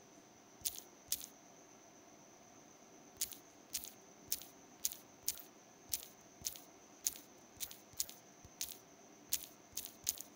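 Sharp single clicks, one for each key pressed while typing on a phone's on-screen keyboard: two clicks, a pause of about two seconds, then a steady run of about two clicks a second.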